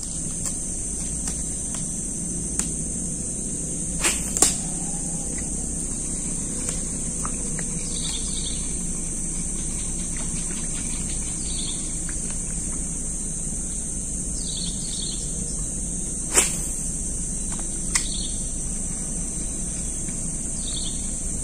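Insects buzzing steadily in a high, even drone, with a few short bird chirps now and then. A handful of sharp clicks stand out above it, two close together about four seconds in and another near sixteen seconds.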